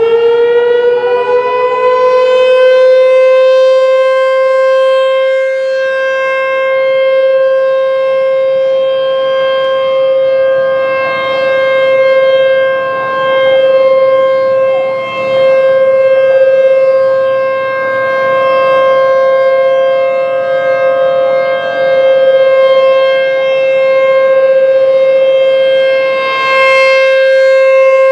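ASC T-128 outdoor tornado warning siren sounding a steady tone for a statewide tornado drill test, finishing its wind-up as the pitch rises and levels off. It then holds one loud steady note, its loudness swelling and fading every few seconds.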